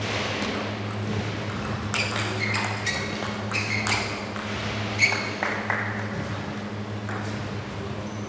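Table tennis rally: the celluloid-type ball struck back and forth by rubber-faced bats and bouncing on the table. It makes a quick series of sharp clicks and pings over about four seconds, the loudest about five seconds in. One more hit comes near the end.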